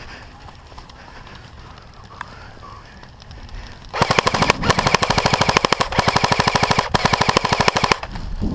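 Airsoft electric rifle firing full-auto, a fast even rattle of shots starting about halfway in and lasting about four seconds, with one short break.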